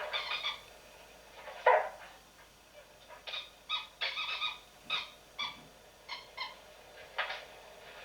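A small dog barking and yipping in a string of short, high-pitched barks, irregularly spaced, the loudest about two seconds in.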